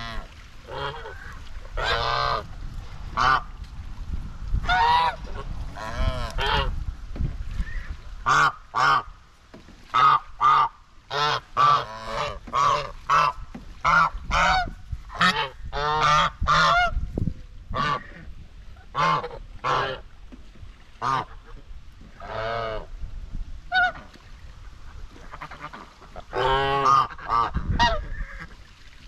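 White Chinese geese honking, several birds calling back and forth in short honks. The calls come thickest in a quick run through the middle.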